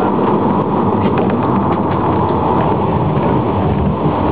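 Tram running on its rails, heard from inside the car: a steady noise of wheels and motors with scattered light clicks.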